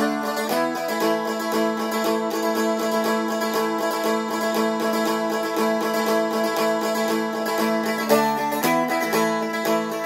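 Seagull Merlin M4 stick dulcimer strummed briskly and evenly with a pick, chords ringing over a drone note that holds throughout. The chord changes about half a second in and twice more near the end.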